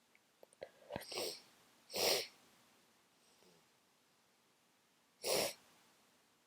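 Two short, loud sneezes from a person with a congested head cold, about two seconds in and again near the end, with a short noisy breath just before the first.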